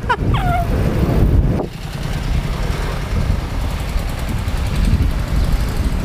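Low rumble of wind and road noise on the microphone of a bicycle being towed along by a moving car, with the car's engine running close by.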